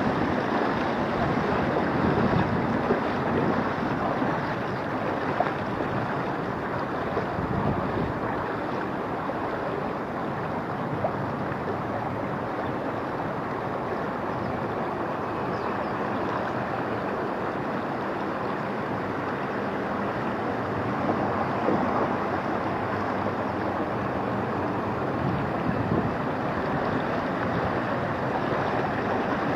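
Floodwater rushing steadily, an even, unbroken rushing noise.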